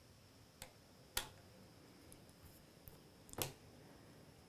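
Small sharp clicks of a jeweler's screwdriver and tiny screws against the metal screen brackets of a laptop: four clicks, two louder ones about a second in and near the end, over a faint steady hiss.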